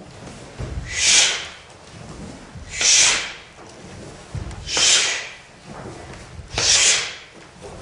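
A group of actors breathing out hard together in a hiss, once about every two seconds, four times, with low thuds of bodies moving on the floor under each breath.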